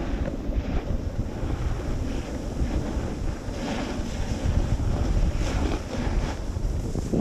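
Wind buffeting the microphone as a snowboard runs downhill, with a steady rumble and the board's edges hissing and scraping over the snow in turns.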